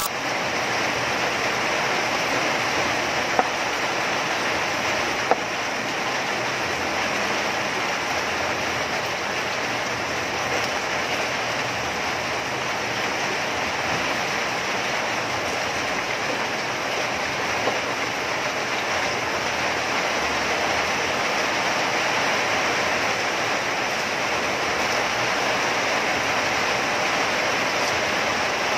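Steady rushing noise throughout, with a knife knocking twice on a wooden cutting board a few seconds in.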